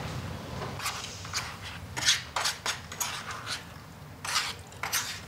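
Spoons tapping and scraping against bowls at a meal: a string of about ten light, irregular clinks, the loudest about two seconds in.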